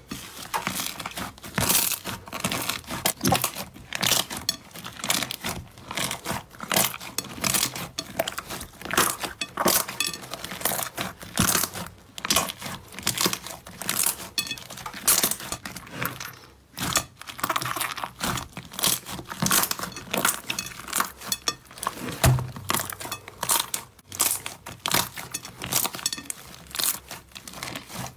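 Hands kneading and pressing a large mass of pink fluffy slime, giving a dense, irregular crackling.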